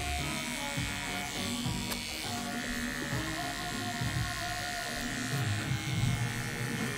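Electric hair clipper buzzing steadily as it is run against the back of the neck to cut a fade, with music playing in the background.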